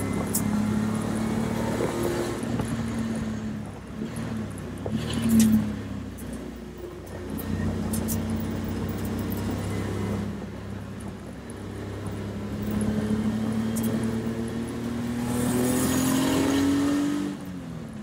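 Race car engine heard from inside the cockpit while lapping: steady at speed, easing off while the car slows with a brief loud spike around five seconds in, then revs climbing steadily from about twelve seconds until a sudden drop near the end as it shifts up.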